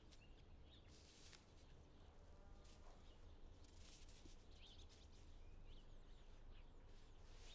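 Near silence: quiet room tone with a few faint, short bird chirps.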